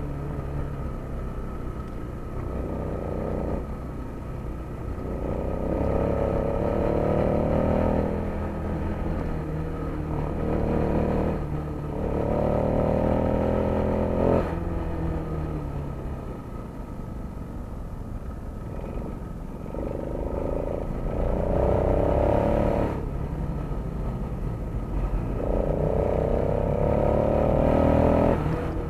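A vehicle engine accelerating several times, its pitch climbing over a few seconds and then dropping away each time, over a steady low rumble of street traffic.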